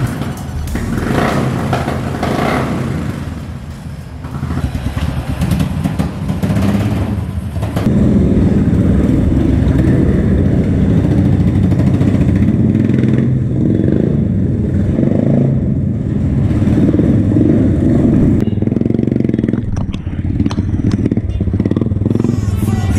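Royal Enfield Himalayan single-cylinder motorcycle engine running and being revved, with other motorcycles around it. The engine gets louder about eight seconds in and rises and falls in pitch as the throttle is worked.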